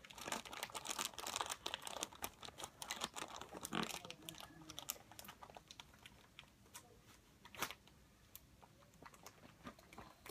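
Packaging being opened by hand: dense crinkling and tearing for the first few seconds, then scattered crackles and clicks.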